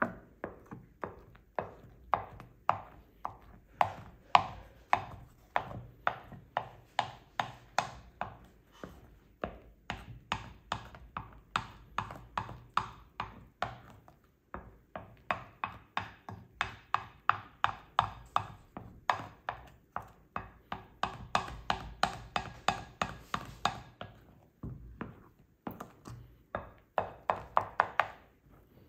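A kitchen utensil striking in a fast, regular rhythm, about three strokes a second, with a few short breaks.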